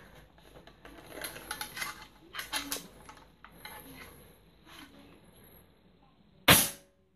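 Hatsan AT44 QE PCP air rifle fired once with air only and no pellet: a single sharp shot about six and a half seconds in. Before it come faint clicks and rattles of the rifle being handled.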